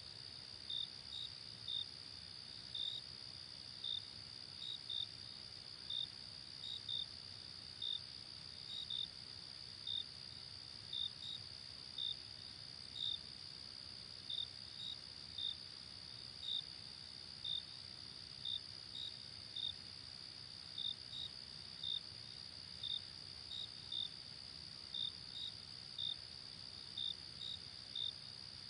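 Crickets chirping in a night chorus: a continuous high trill with separate short chirps over it, about one or two a second and sometimes in quick pairs.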